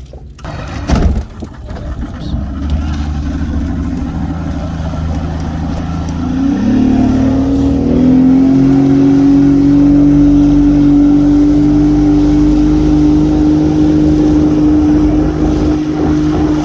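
Motorboat engine speeding up about six to eight seconds in, its pitch rising and then holding a steady high drone as it tows the inflatable couch ride. A loud thump about a second in.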